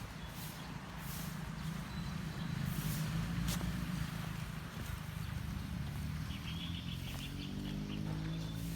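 A small bird chirping a quick run of short high notes about six seconds in, over a steady low rumble. Near the end a low droning hum rises slightly in pitch.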